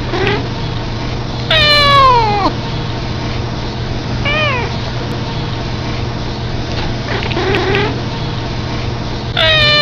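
A cat yawning out loud: drawn-out cries that fall in pitch. A loud one comes about a second and a half in, a short one near the middle, a faint one later, and another loud one starts just before the end, all over a steady low hum.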